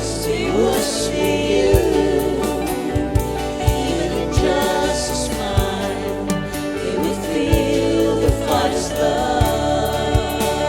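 Live worship band and singers performing a Christian worship song: voices singing a melody over a steady beat of kick drum and bass.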